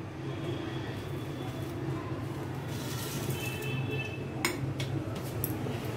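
Brass dishware clinking: one sharp clink of the brass plate about four and a half seconds in, followed by a few lighter clinks, over a steady low hum.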